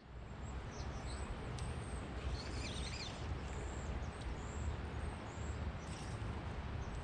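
Outdoor ambience: a steady low rushing noise with small birds chirping high above it, including a brief warbling call about two and a half seconds in.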